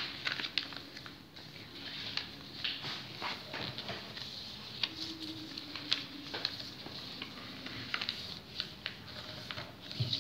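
A sheet of paper rustling and crackling as it is folded by hand, with many short sharp crackles and taps as fingers press and smooth the creases flat.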